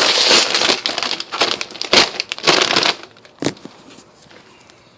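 A crinkly Munchies snack-mix bag being handled and pulled open. It crinkles loudly and densely for about three seconds, then goes quiet apart from a single tap.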